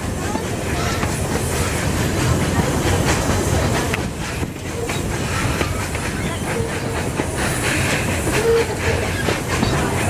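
2 ft 6 in narrow-gauge steam train with wooden carriages running, heard from an open carriage window: a steady rumble with wheels clicking over the rail joints. A few short squeals come in the second half as it rounds a curve.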